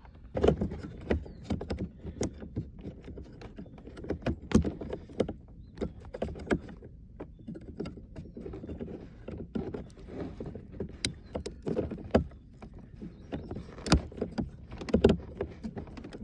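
Irregular plastic clicks, taps and knocks of wiring connectors and center-console parts being handled and pushed together, the sharper clicks being connectors latching home.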